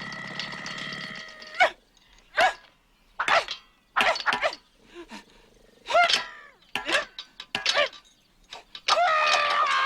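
A comic male character voice straining with effort: a long held strained groan, then a run of short grunts that each fall in pitch, and a loud sustained strained cry starting near the end.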